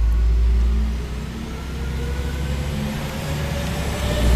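Diesel railbus SA134 accelerating: a deep engine rumble with a whine that climbs steadily in pitch as it gathers speed, growing louder near the end.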